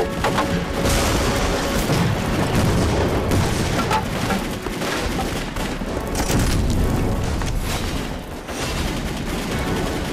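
Battle sound effects: large explosions with a deep rumble, swelling about a second in and again around six seconds, amid scattered gunfire.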